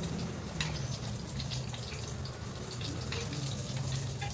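Tofu deep-frying in a wok of hot oil with a steady sizzle. A few light clicks come from the metal skimmer and spatula touching the wok's wire strainer.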